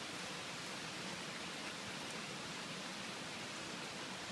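Steady, even hiss of water in the flooded yard, with no distinct events.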